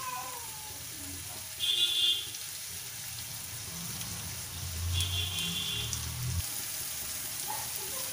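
Sliced onions frying in oil in a steel kadhai, a steady sizzle. Two brief high-pitched sounds come about two and five seconds in, the first the louder.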